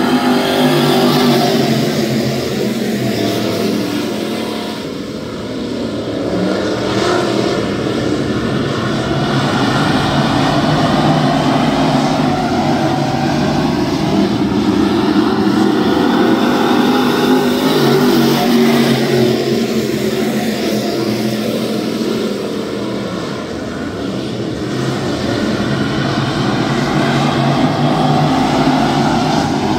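A pack of dirt late model race cars running flat out around a dirt oval, their V8 engines blending into one loud, continuous sound. It swells as the field passes close and dips twice, about five seconds in and again past the twenty-second mark, as the cars go to the far side of the track.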